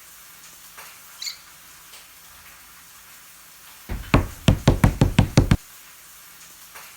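Rapid knocking: about ten sharp knocks in a second and a half, starting about four seconds in, after a brief faint high squeak about a second in.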